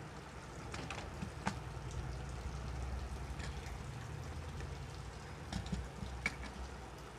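A few light clicks and taps of metal parts being handled as the electric planer's pulley cover plate is fitted onto its body, over a low steady rumble.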